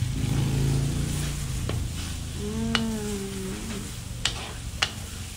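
Sliced onions, garlic and curry leaves sizzling in hot oil in a steel wok, stirred with a wooden spatula that ticks against the pan a few times: aromatics being fried until fragrant, the first stage of a fish-head curry. A low hum underlies the start and fades out.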